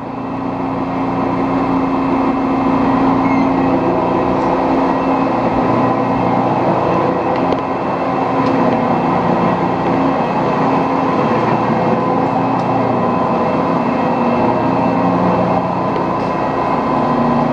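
Metal lathe turning a steel sawmill mandrel collar, running steadily under a cut with a constant pitched hum from the machine. It grows louder over the first couple of seconds, then holds.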